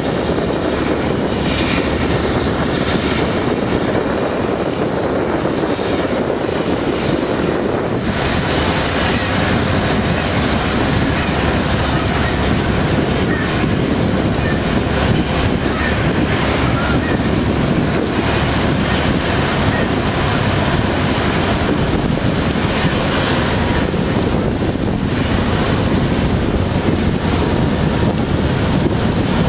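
Wind buffeting the microphone over a steady low rumble of ship engines and water churning in the propeller wash of a tug and a lake freighter.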